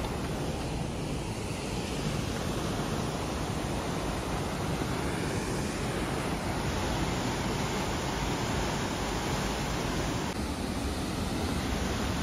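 Steady rushing of whitewater from a waterfall on the Kaituna River.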